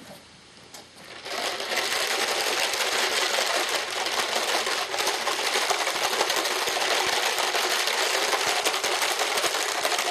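Plastic pin hinges rattling in a plastic jelly jar: a dense, continuous clatter of small clicks that starts about a second in and keeps going.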